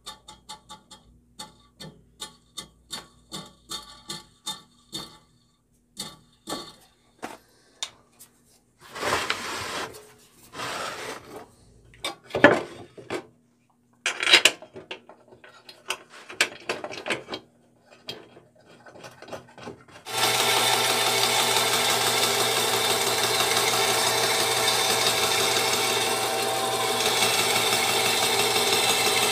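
Light, evenly spaced clicks, then handling knocks and rubbing on a Craftsman 10-inch direct-drive bandsaw. About two-thirds of the way in the saw switches on and runs steadily, and near the end a board is fed into its blade.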